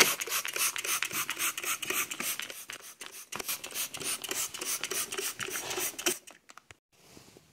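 Hand trigger spray bottle of cleaner squeezed over and over at a bicycle, a quick string of short hissing squirts, several a second. It stops about six seconds in, followed by a few light clicks.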